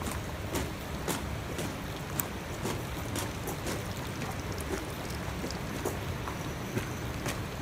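A walker's footsteps at a steady pace, about two steps a second, over a steady low background rumble.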